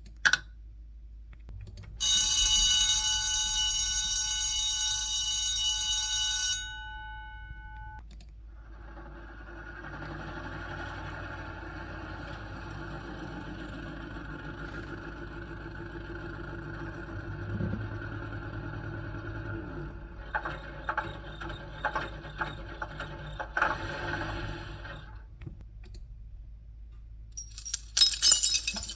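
Film sound effects: a loud electric ringing, like a bell or alarm, for about four seconds, then a long steady mechanical hum with clicks and rattles near the end.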